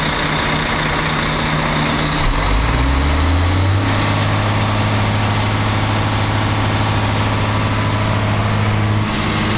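Diesel bus engine idling, then revved up about two seconds in and held at high revs for around five seconds before dropping back near the end.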